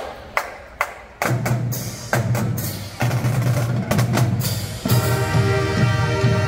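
High school marching band: three sharp clicks as a count-off, then the drumline's snare and bass drums start playing about a second in. The brass section, sousaphone included, comes in with held chords near the end.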